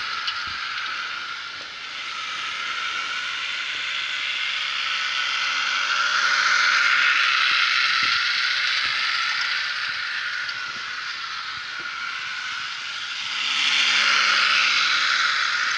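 Model CC 40101 locomotive running on its motor test around a track loop with container wagons: a steady mechanical whir of motor, gears and wheels on the rails. It grows louder and quieter as the train comes near and moves away, loudest about six seconds in and again near the end.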